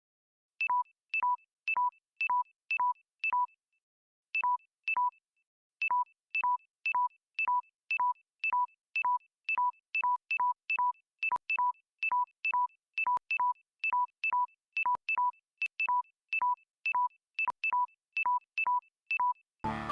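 Sony TV's default interface beep, a short electronic blip repeated over and over at about two to three a second, like the sound of remote-control presses while moving through the menu, with two brief pauses. Music starts right at the end.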